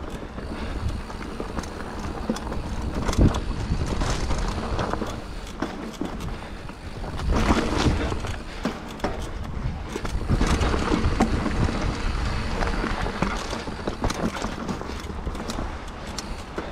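Scott Genius 950 full-suspension mountain bike ridden over rough dirt singletrack: tyres rolling on dirt and the bike rattling and clattering over bumps. There is a sharp knock about three seconds in and rougher, louder stretches around eight seconds and again from ten to thirteen seconds.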